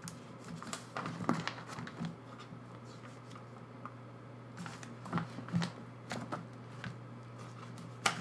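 Plastic binder sleeves and photocards being handled and pages turned: scattered crinkles and light taps, in clusters about a second in and again around five seconds in, over a steady low hum.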